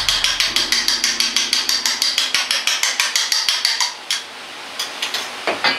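Wooden chopsticks beating eggs in a stainless steel bowl, clicking rapidly against the metal at about eight strokes a second. The beating stops about four seconds in, followed by a few single taps.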